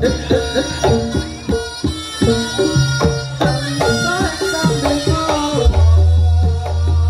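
Jaranan accompaniment music: drums and struck pitched gamelan-style percussion in a quick repeating pattern, with a sliding melody line above them. A deep sustained bass note comes in near the end.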